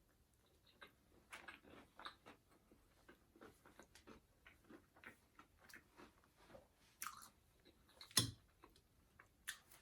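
Faint close-up chewing of fast food: a steady run of small wet mouth clicks, with a few louder ones near the end.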